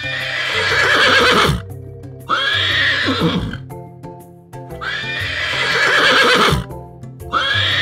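Horse whinnying four times, about two and a half seconds apart, each whinny starting high and falling away in pitch, over background music.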